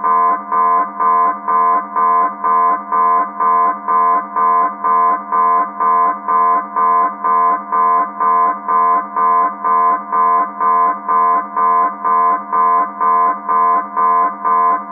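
Military submarine alarm sounding: a pitched alarm tone pulsing evenly about two and a half times a second over a steady low drone. It stops at the very end.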